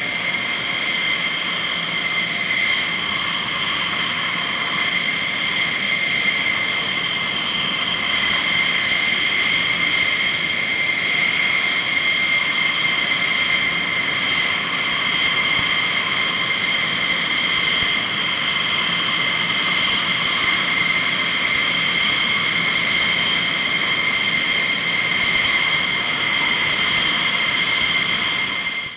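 F-16 fighter's jet engine running at ground idle: a steady high-pitched whine, two strong tones over a rushing noise.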